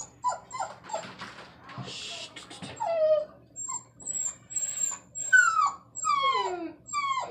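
Puppy crying while being bathed in a sink: short, very high squeals, then from about three seconds in a string of drawn-out whines that each slide down in pitch, the distress calls of a dog that does not want its bath.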